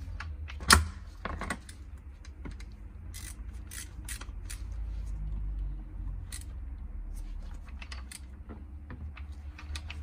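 Gearbox of a Shineray 250 cc ATV engine ticking and clicking as its shafts and gears are turned by hand during a test of the gearbox in neutral. There is one sharp click under a second in.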